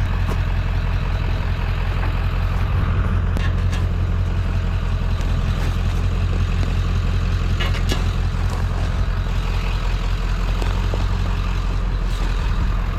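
Pickup truck engine idling steadily with a low rumble, with a few light clicks and knocks from chairs being handled.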